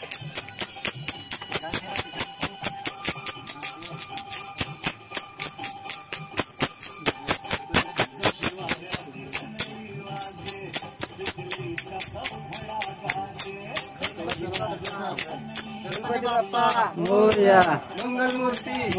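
Music with a fast, even beat of jingling bells and percussion. High steady tones drop out for about a second around nine seconds in, and a loud melody line with swooping pitch comes in near the end.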